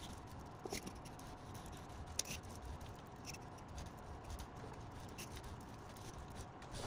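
Faint scattered clicks and rubbing over a steady low hiss: robot arms' motors and grippers working while they handle cotton shorts.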